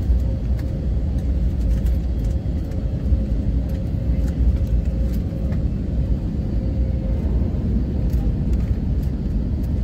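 Airliner cabin noise during landing: a steady low rumble with a steady hum on top that fades out about seven seconds in.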